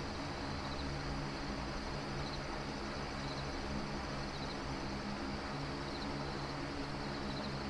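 Faint cricket chirps, short high pulses about every second or so, over a steady low hum and hiss.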